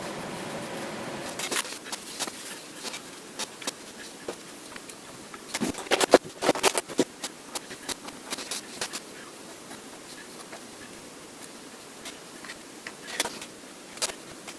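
A steady buzz that stops about a second and a half in, then irregular clicks, taps and scrapes of small tools and parts being handled, with a dense run of them around six seconds in and a couple more near the end.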